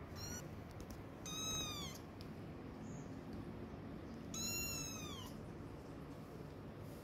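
Kitten meowing: a brief faint cry at the start, then two long, high meows about three seconds apart, each dropping in pitch at its end.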